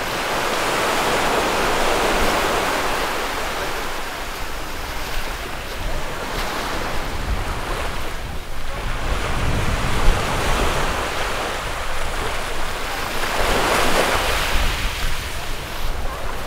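Surf washing up on a beach, the waves swelling and receding several times, with wind buffeting the microphone.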